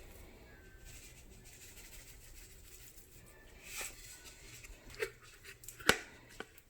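A few light clicks and knocks from handling things in the kitchen over a quiet room background, the sharpest about six seconds in.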